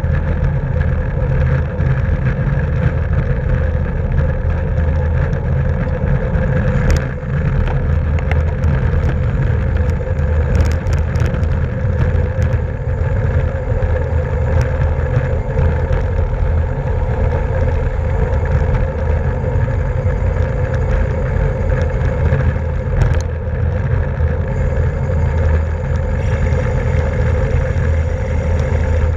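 Steady wind and road noise on a camera riding with a bicycle racing in a criterium, heaviest in the low end, with a few short clicks.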